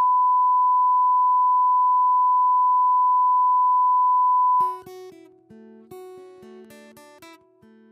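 A steady, loud broadcast line-up test tone, one pure pitch played over colour bars, holding for about four and a half seconds and then cutting off. Quieter music of plucked-string notes begins straight after.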